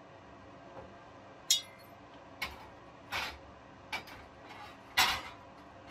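Plasma-cut steel sheet and loose cut-out pieces clinking and knocking against the metal slats of a CNC plasma table as the parts are worked free: about five separate knocks at uneven intervals, the loudest near the end.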